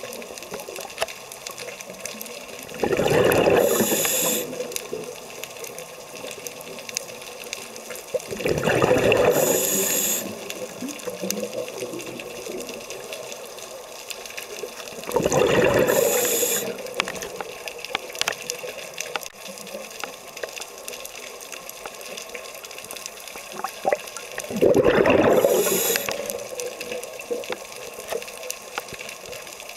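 Scuba diver's exhaled breath bubbling out of the regulator underwater: four loud rushes of bubbles, each lasting a second or two, about every six to nine seconds. A faint steady crackle of clicks runs between the breaths.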